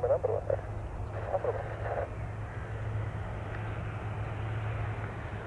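Twin-engine propeller airplane's engines and propellers running with a steady low drone as it rolls along the runway. Brief voices nearby during the first two seconds.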